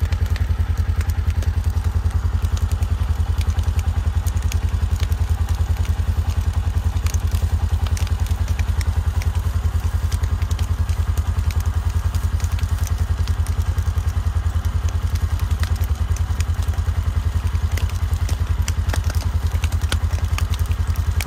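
Dry pasture grass burning with scattered crackles, under a loud, steady low rumble that pulses rapidly.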